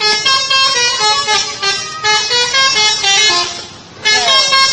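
Indonesian bus 'telolet' horn: a multi-tone musical horn playing a quick tune of short notes. It breaks off briefly about three and a half seconds in, then starts again near the end.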